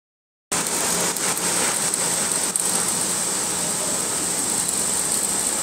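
Steady crackling hiss of welding on a steel structure, with a thin high steady whine running through it.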